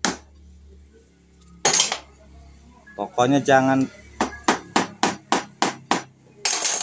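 A hammer strikes a wooden block held against the cylinder head of a Suzuki Satria FU 150, knocking the head loose after its through-bolts have been removed. There are a few single blows, then a quick run of about eight strikes at roughly four a second, and one more loud blow near the end.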